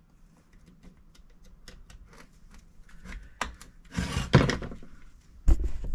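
Screwdriver and metal parts clicking and tapping as a chainsaw engine is handled on a wooden workbench, with a louder scrape about four seconds in and a few heavy knocks near the end.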